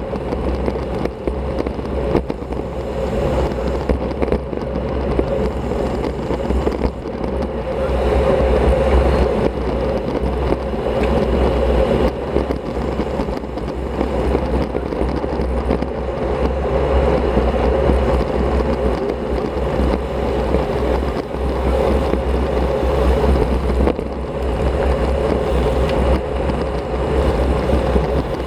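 Wind rushing over the microphone of a Shimano CM-1100 action camera on a moving road bike: a steady rumble and rush that swells a little at times.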